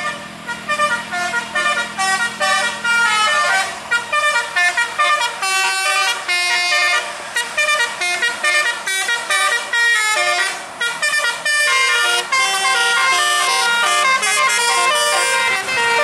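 Basuri-style telolet horns on passing vehicles playing fast multi-note melodies, with the pitch stepping up and down in quick runs, one tune after another with brief breaks between.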